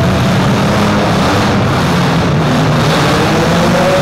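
Engines of many demolition-derby SUVs, small trucks and minivans running and revving together, loud and continuous. Engine pitch climbs near the end as one is revved harder.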